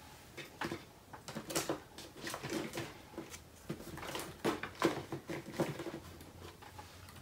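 Craft tools and supplies being moved about on a table in a search, giving irregular light clicks, taps and knocks.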